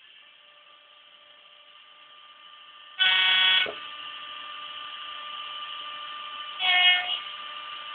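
Sound decoder of a Mehano model CP 5600 electric locomotive sounding its horn twice through its small speaker: a longer blast about three seconds in and a shorter one near the end. Under the horn, the decoder's steady electric running hum grows louder as the model moves.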